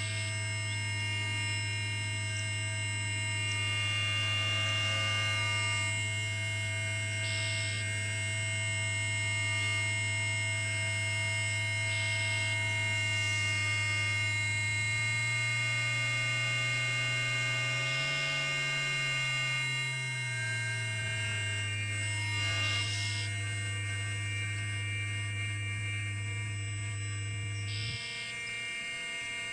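Electronic drone improvisation: a low steady tone that slides up in pitch about halfway through and back down, over a bed of many steady high tones, with a few short hissy bursts scattered through. The low tone drops out near the end.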